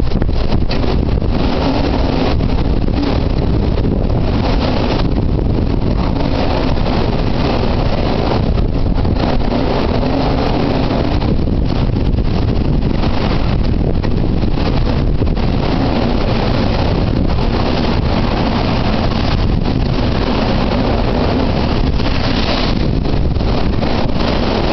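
Typhoon gale buffeting the microphone: a loud, unbroken rumbling roar of wind, heaviest in the low end.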